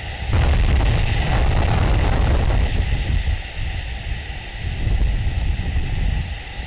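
Summer storm rumbling on an outdoor nest-camera microphone, with wind noise throughout. About a third of a second in, a sudden loud crash breaks in and rumbles on for two to three seconds before easing back.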